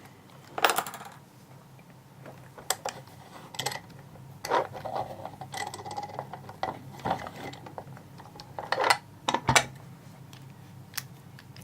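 Scattered metallic clicks, knocks and clinks as a freshly picked-open padlock and its metal picking tools are handled, with a few louder knocks and a brief ringing clink.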